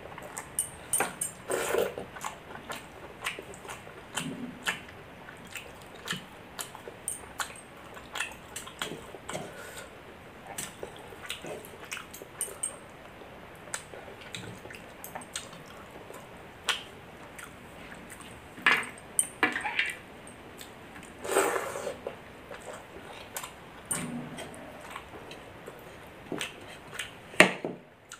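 Close-up eating sounds: wet chewing and squelching of milk-soaked rice, with many small clicks and occasional clinks of a plate or utensil, a few of them louder.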